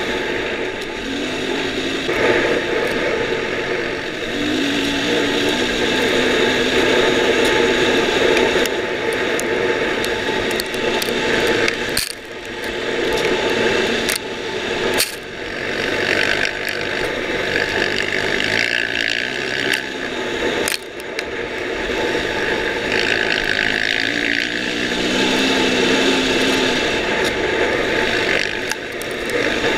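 Dirt bike engine running hard at speed, its pitch stepping up and down with throttle and gear changes, with a steady mechanical rattle throughout. The engine note drops briefly a few times when the throttle is rolled off.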